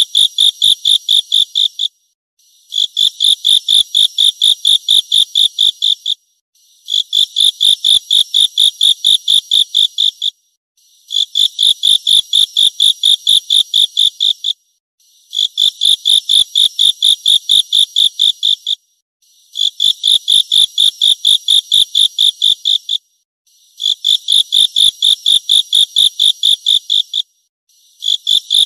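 Grasshopper stridulating: high-pitched bouts of about four pulses a second, each bout lasting a little over three seconds with a short pause between, repeating evenly about seven times.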